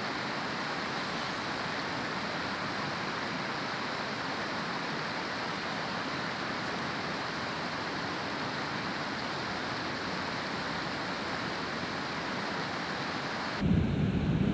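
A steady, even rushing hiss of open-air ambience. Near the end it switches abruptly to a louder low rumble of wind buffeting the microphone.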